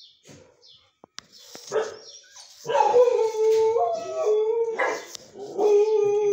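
Dog howling: after a few short, quieter whines, a long wavering howl starts about three seconds in, breaks off briefly, and a second howl is held steady near the end.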